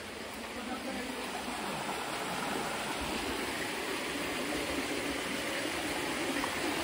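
Stream water running and splashing over rocks, a steady rushing that grows gradually louder.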